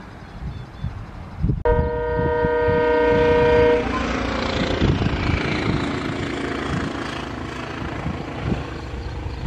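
Indian Railways diesel locomotive horn sounding one loud multi-note chord for about two seconds, starting about a second and a half in, after which the steady rumble and rush of the passing train takes over.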